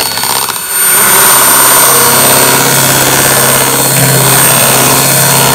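Electric hand mixer running steadily, its twin beaters whipping eggs and sugar into a thick, pale batter in a plastic bowl. There is a short dip in level about half a second in, then an even motor hum.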